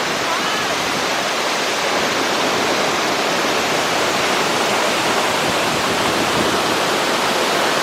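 A waterfall pouring close by: a loud, steady, dense rush of falling water that does not let up.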